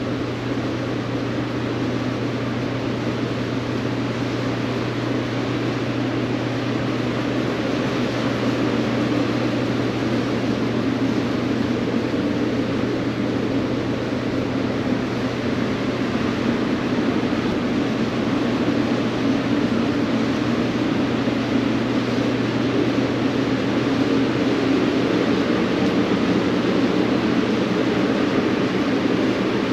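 Steady ventilation noise, as from large fans: an even whooshing hiss with a constant low hum underneath, unchanging throughout.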